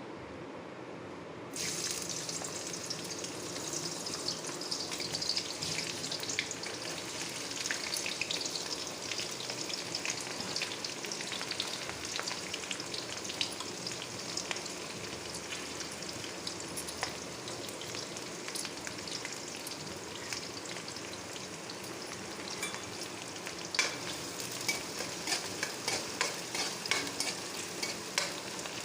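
Food sizzling as it fries in hot oil in a pan, with the sizzle starting abruptly about a second and a half in. A spoon scrapes and clicks against the pan as it stirs, more often near the end.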